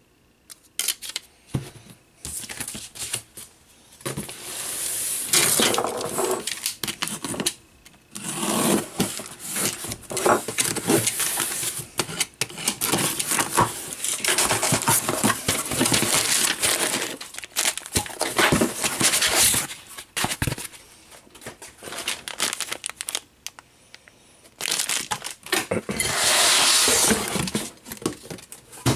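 Packaging being handled: a cardboard box opened and packing wrap rustling and crinkling in irregular bursts, with scattered clicks of plastic mounting parts, as a camera wall-mount bracket is unpacked.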